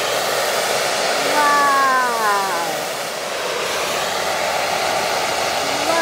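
Handheld gas torch flame hissing steadily. About a second and a half in, a descending multi-tone glide sounds over it for about a second.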